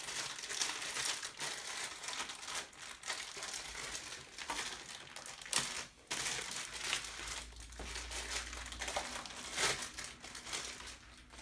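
Plastic bag crinkling as a monitor's power cord is handled and unwrapped: irregular rustling with a few sharper crackles.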